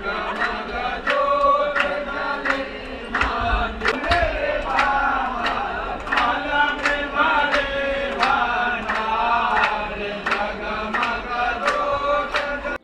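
A group of devotees chanting a Hindu aarti together, kept in time by hand claps at an even beat of about two a second.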